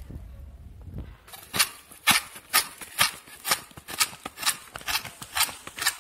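Knife blade scraping fresh coconut meat out of a half shell in short, even strokes, about two a second, starting a little over a second in.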